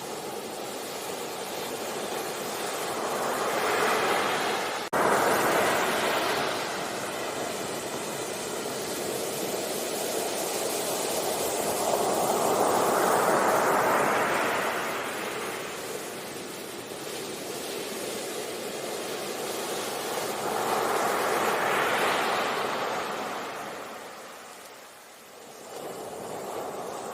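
Sea waves breaking and washing on a beach, rising and falling in long swells several seconds apart, with a sudden jump in loudness about five seconds in.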